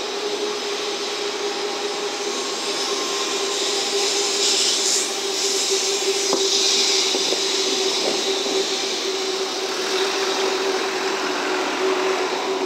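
N700-series Shinkansen train running slowly past: a steady hum holding one tone, with a hiss that grows louder around the middle and a few faint clicks.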